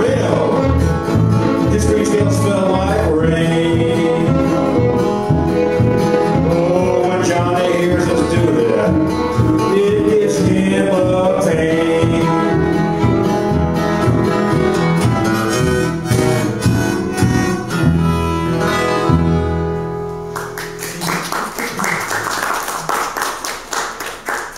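Small acoustic string band (acoustic guitar, upright bass, fiddle and a small guitar) playing a country song that ends about twenty seconds in, followed by a few seconds of clapping.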